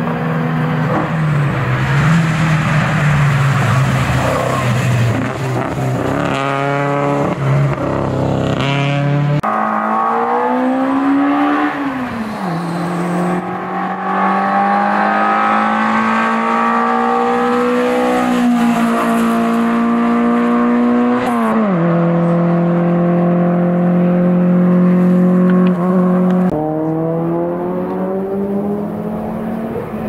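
Historic competition cars' engines running hard up a hillclimb, several cars in turn, revs climbing sharply through the gears a few times around the middle. The engine note changes abruptly three times as a different car takes over.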